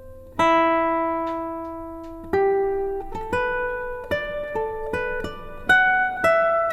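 Solo guitar playing slow single plucked notes that ring out. The first note sustains for about two seconds, then the notes come quicker, roughly two a second, in a gentle melodic line.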